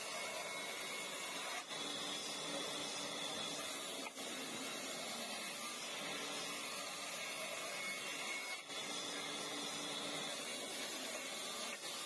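Old sawmill bandsaw ripping lengthwise through a dry log slab: the blade and machine give a steady, high-pitched rasping noise, with a few momentary dips in level.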